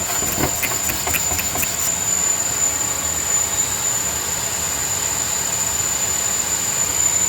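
Vacuum cleaner running in reverse to blow air into a truck's exhaust system, a steady rush of air with a constant high whine. It is pressurising the exhaust so a leak shows up under sprayed soapy water. In the first couple of seconds there are several quick spritzes from the soapy-water spray bottle.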